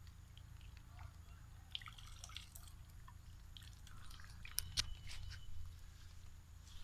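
Quiet outdoor ambience: a steady low rumble with scattered faint clicks and ticks, a few sharper ones a little past the middle.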